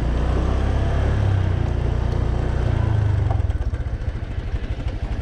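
Honda motor scooter's engine running as it is ridden, then dropping to a low, even putter about three seconds in as the scooter slows.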